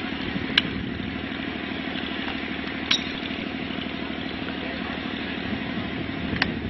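Golf balls struck off driving-range mats: three sharp club-on-ball clicks, a few seconds apart, over a steady engine-like hum.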